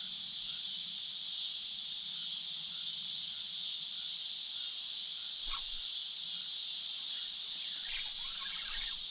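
Steady chorus of insects at dusk, an even high-pitched hiss, with a couple of faint brief rustles about five and a half seconds in and near the end.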